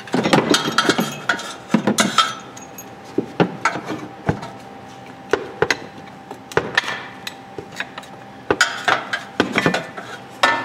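Hand tools working on steel bolts: a ratchet wrench clicking in short runs, with metal clinks and knocks in between, as the bolts of a bracket under the car are undone.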